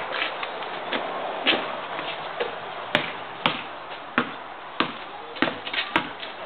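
Basketball bouncing on asphalt as it is dribbled, a sharp bounce every half second to a second at an uneven pace.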